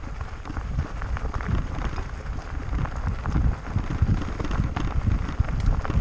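Fat tyres of a Rad Mini electric bike crunching over a gravel road while coasting downhill, with a dense run of irregular knocks and rattles from the bike over bumps and a low rumble throughout.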